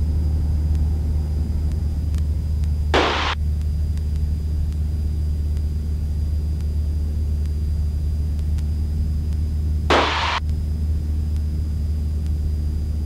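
Cessna 172's engine and propeller droning steadily, heard from inside the cabin, with two short bursts of hiss about three and ten seconds in.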